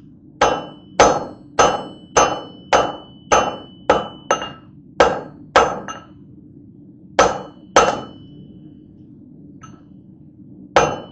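Hammer striking hot steel on an anvil as the point of a welded wire blade is forged, about two blows a second, each with a short metallic ring. The blows stop a little past the middle and start again near the end.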